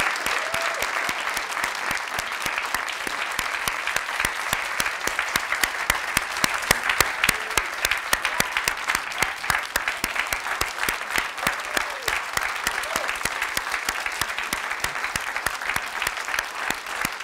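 Large audience clapping: dense, sustained applause with no let-up.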